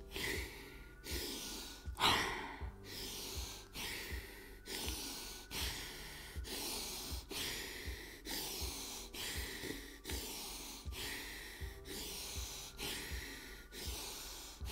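A woman breathing forcefully and fast in and out through the nose, in a steady rhythm of about two strokes a second, sucking air in and forcing it out. This is a pranayama breathwork round of strong nasal breaths.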